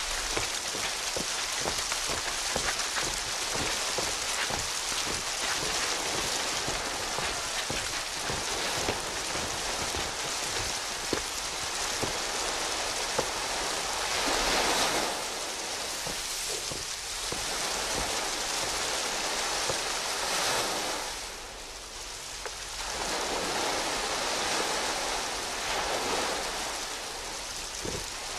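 Sea surf washing onto a sandy beach: a steady rushing hiss that swells and falls back every few seconds.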